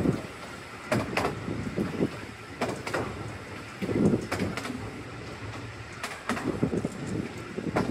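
Narrow-gauge train carriage running along the track: a steady rumble with sharp clicks in pairs as the wheels pass over rail joints, and a louder low burst about halfway through.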